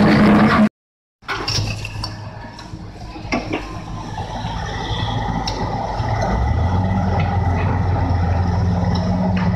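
Komatsu hydraulic excavator's diesel engine running steadily, growing louder and taking on a deeper tone about six seconds in as it works under load, with a few light clinks of rock. A short noisy sound cuts off abruptly within the first second.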